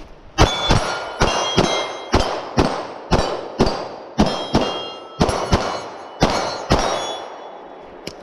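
Rapid gunfire at steel targets: about fourteen shots in seven quick pairs, each followed by a metallic ringing. The pairs end about seven seconds in.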